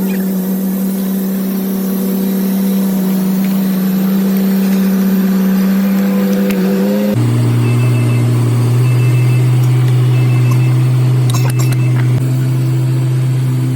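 A machine running with a steady hum. About seven seconds in, the hum changes abruptly to a lower steady pitch, and a few faint clicks follow later.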